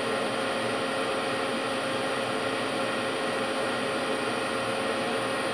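OKK MCV-500 vertical machining center running with a steady, even whirring hum and a faint steady tone, unchanged throughout.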